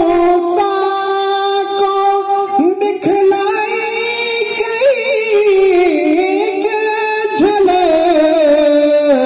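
A man singing a naat unaccompanied into a microphone, holding long melodic notes and sliding between pitches, with the pitch sinking lower over the last few seconds.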